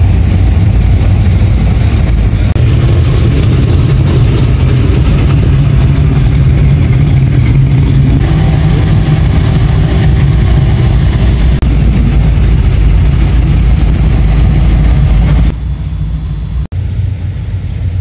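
Loud, low rumble of V8 car engines running as cars roll slowly past close by. About three-quarters of the way through, the sound drops suddenly to a quieter engine.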